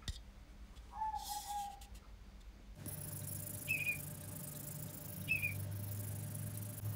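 A bird calling: one held note about a second in, then three short falling chirps about a second and a half apart, over a steady low hum.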